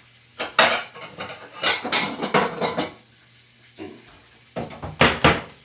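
Dishes and utensils clattering in several bursts of knocks and scrapes as a plate is fetched and handled.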